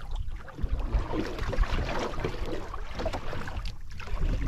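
Wind buffeting the microphone, a gusty low rumble, over water lapping against the hull of a small outrigger boat at sea.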